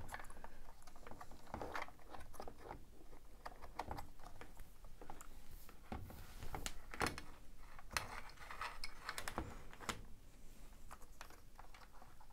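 Plastic parts and wiring of a Makita DUC356 cordless chainsaw being handled and pressed into its plastic housing: irregular light clicks, taps and rattles.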